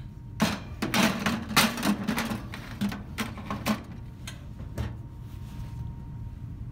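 Metal muffin tin rattling and scraping against the wire rack of a Breville countertop oven as it is slid in, a quick series of clatters, then a single clunk of the oven door being shut about five seconds in.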